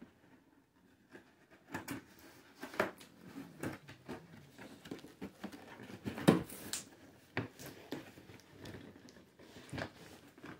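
Cardboard box being handled and opened: irregular scrapes, taps and knocks of cardboard, with a louder thump about six seconds in.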